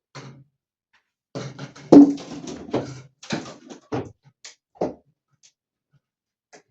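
A person's voice making short, choppy vocal sounds in several quick bursts, with gaps of silence between them.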